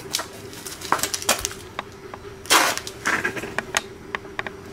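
Scattered clicks and knocks of hand tools being handled during brake-bleeding work, with a louder brief rush of noise about two and a half seconds in, over a faint steady hum.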